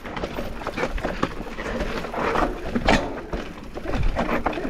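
Mountain bike riding down rough singletrack: tyres crunching over dirt and stones, with an irregular clatter of knocks from the bike over a steady low rumble.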